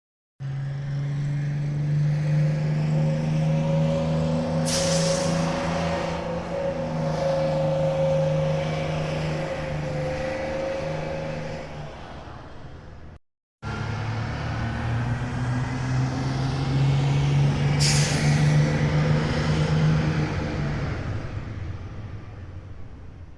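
School bus diesel engine running, with a sharp hiss of air from the air brakes about four seconds in. It is heard twice, in two takes separated by a moment of silence, and each take fades away at its end.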